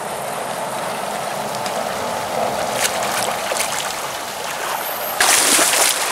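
Steady rush of flowing creek water, with a few faint clicks a third of the way in. Near the end a much louder hissing burst lasts just under a second and stops suddenly.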